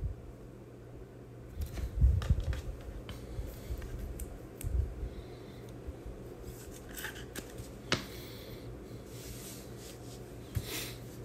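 Hands handling trading cards: light rustling and sliding, with scattered soft clicks and a couple of dull knocks, the loudest about two seconds in.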